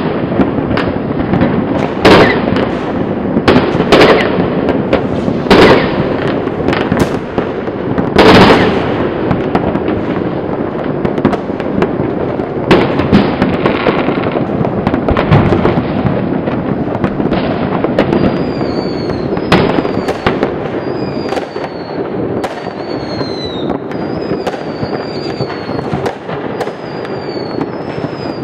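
Fireworks and firecrackers going off across a city: a dense crackle of distant bangs, with several loud close bangs in the first ten seconds. In the second half, short falling whistles repeat about once a second over the crackle.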